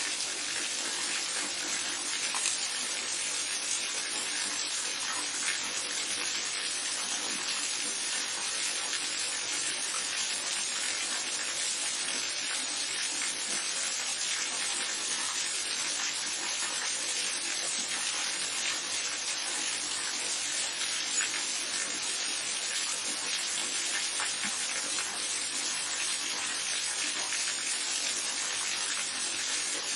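Waterfall and babbling brook: a steady rush of running water, an even hiss with no let-up.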